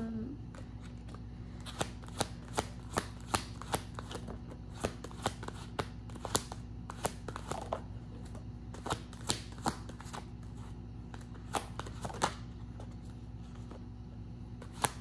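Tarot cards shuffled by hand: a run of sharp card taps and flicks, a few a second, which stops about twelve seconds in and starts again just at the end.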